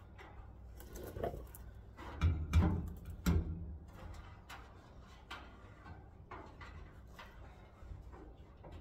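Scattered clicks, light knocks and rustling as hands fumble up at a fuel tank, feeling for the sending unit terminal to attach its wire. A few louder bumps come between about two and three and a half seconds in.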